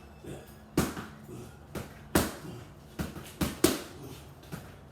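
Boxing punches landing in quick combinations, about seven sharp smacks, some in fast one-two pairs.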